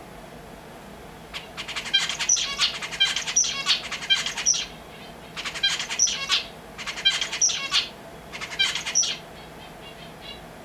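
A finch singing: runs of quick, warbled high notes in several phrases separated by short pauses, each phrase capped by a higher note.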